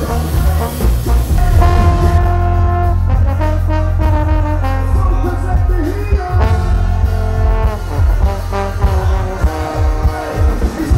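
Live band music with a heavy bass line and drums, and a trombone playing held notes and short phrases over it.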